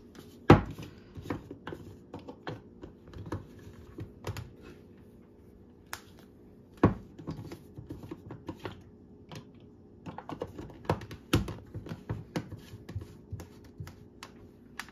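Light irregular clicks and taps of kitchen containers and a blender jar being handled, with three louder knocks: about half a second in, near seven seconds, and past eleven seconds. A faint steady hum runs underneath.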